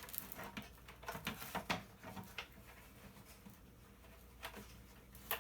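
Light, scattered clicks and taps of hard parts being handled and prodded, several in the first couple of seconds, then a quieter stretch with a few more near the end.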